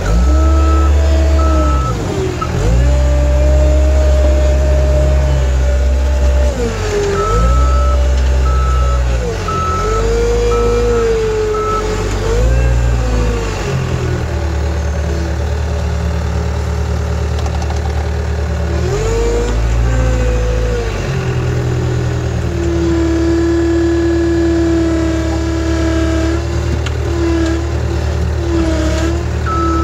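Skid-steer loader's diesel engine running, heard from inside the cab, its pitch rising and falling again and again as the machine is driven. A reversing alarm beeps in a steady on-off pattern at the start, again for several seconds a quarter of the way in, and once more at the very end as the machine backs up.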